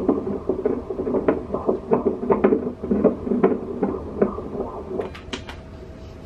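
Fetal heartbeat of a 38-week baby heard through an ultrasound machine's Doppler: fast, rhythmic whooshing pulses that stop about five seconds in, followed by a few sharp clicks.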